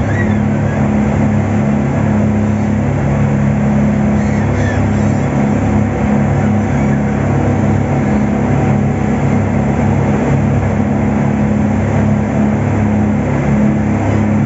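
An engine running steadily, a constant low drone with no change in speed.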